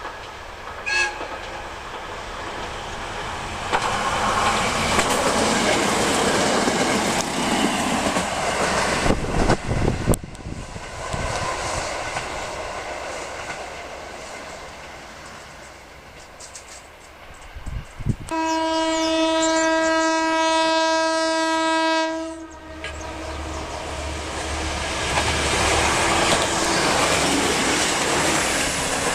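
A Kyoto Tango Railway train passing over a level crossing, its running noise and wheel clatter rising and falling. About two-thirds of the way through, it sounds one long, steady horn blast of about four seconds.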